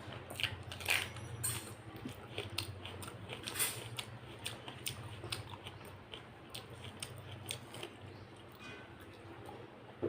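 Close-up eating sounds: irregular wet clicks and smacks of chewing and of food being handled, thickest in the first few seconds, over a steady low hum.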